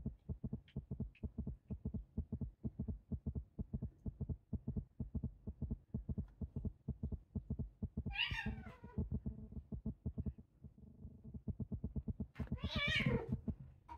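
British Shorthair cats wrestling in play, one crying out twice with short wavering meows, about eight seconds in and again, louder, near the end. Under it runs a fast, even low thumping, several beats a second.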